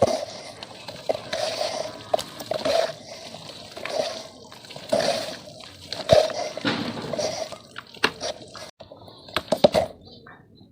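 Red dirt being crumbled into water: a run of wet splashes and sloshes about once a second, then a few sharp crunchy cracks near the end.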